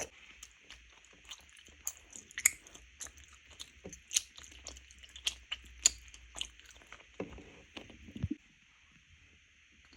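Crunchy eating sounds: an irregular run of short, sharp crunches and mouth clicks, with a couple of softer, fuller chews near the end, over a faint steady hiss.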